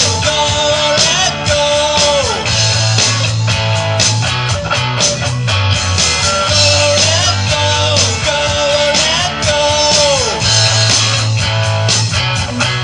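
A live rock band playing through amplifiers: drums, bass guitar and electric guitar. A lead line repeatedly slides up and then falls in pitch over a steady bass line and regular drum hits.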